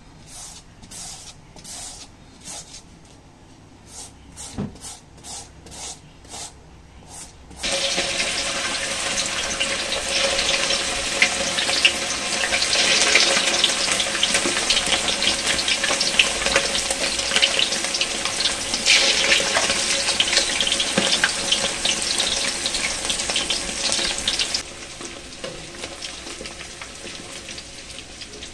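A bottle gourd rasped on a hand grater, faint strokes about two a second. After about seven and a half seconds, chicken pieces deep-frying in hot oil in a steel wok: a loud, steady sizzle that drops to a quieter sizzle a few seconds before the end.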